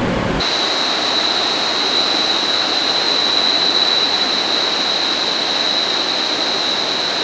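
Ripple Waterfalls pouring at full force after two days of rain, a steady, strong roar. A thin, steady high-pitched whine runs over it. The sound cuts in abruptly about half a second in.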